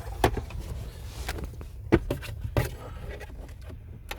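A few sharp clicks and knocks over a low rumble: loose car-radio wiring connectors and cables being handled.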